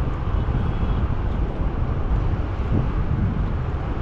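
Steady low outdoor rumble with an even hiss above it and no distinct events.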